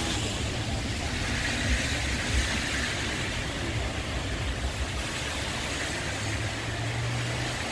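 Steady street traffic noise from cars on a wet road, with a low steady hum joining about six seconds in.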